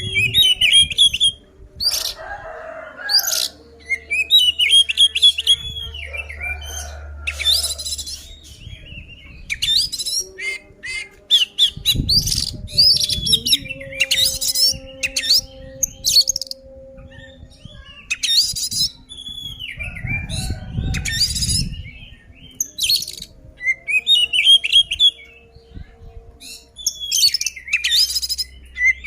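Male Oriental magpie-robin (kacer) singing loudly in quick, varied whistled and chattering phrases, the full open-throated song of an aroused, fight-ready male. A low rumble sounds underneath about twelve seconds in and again about twenty seconds in.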